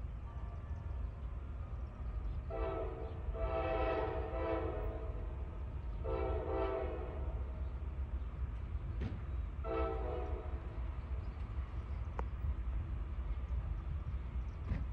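Diesel locomotive horn on an approaching train sounding four blasts: two close together, a third a second later, and a shorter fourth about halfway through. A steady low rumble runs underneath.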